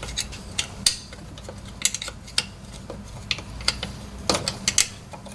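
Metal hand tools clinking and clicking, in irregular sharp knocks scattered throughout.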